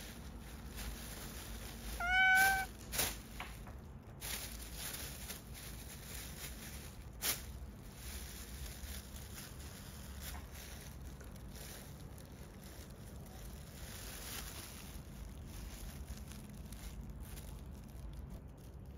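A kitten meows once, a short, fairly high call about two seconds in. Around it a black plastic bin bag crinkles and rustles as kittens burrow and paw in it, with one sharp click about seven seconds in.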